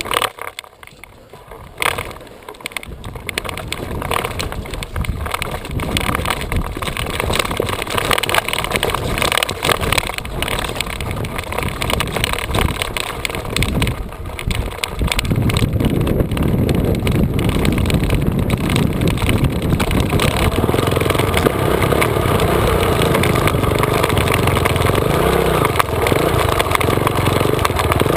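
2004 Honda CRF450R's single-cylinder four-stroke engine running under the rider, heard from a helmet camera. It is uneven and choppy at first, then louder and steadier from about halfway through.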